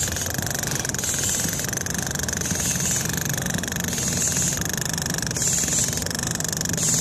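An engine runs steadily under the rhythmic hiss of a firefighter breathing through an SCBA mask regulator, about one breath sound every second and a half.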